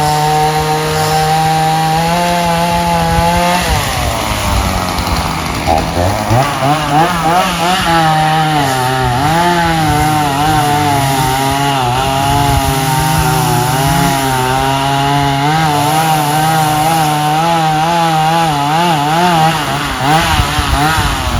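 Chainsaw cutting into an oak tree: the engine runs at high revs, drops briefly about four seconds in, then revs back up and bogs and recovers repeatedly as the chain bites into the wood.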